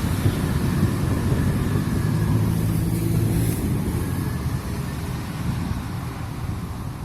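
Tour bus passing on the road, its low diesel engine drone loud at first and fading steadily as it moves away.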